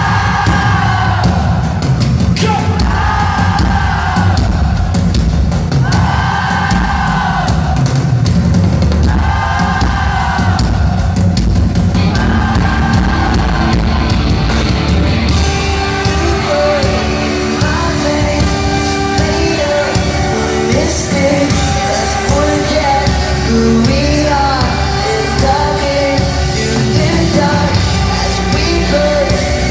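Pop-rock band playing live with singing, loud and steady. A sung phrase repeats about every two seconds at first; about halfway the sound turns brighter and fuller as more of the band comes in.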